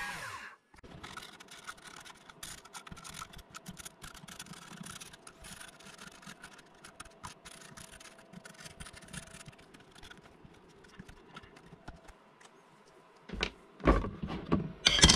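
A Genmitsu 4030 CNC router engraving, cut off about half a second in. Then faint scratching and ticking as a marker pen inks the engraved letters of a wooden plant label, with a few knocks near the end.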